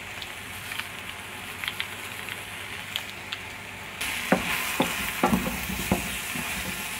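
Diced potatoes, aubergine and shallots sizzling in olive oil in a stainless steel pot, with a few light clicks. About four seconds in a wooden spoon starts stirring them: the sizzle grows louder, and the spoon knocks against the pot several times.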